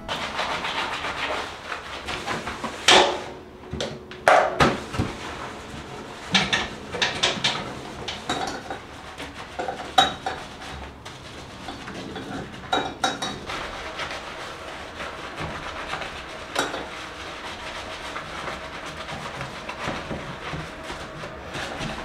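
Scrubbing a bathtub and its brass fixtures with a scrub mitt, a rubbing swish broken by several sharp clinks and knocks of hard objects. The loudest knocks come around three to five seconds in and again about ten seconds in.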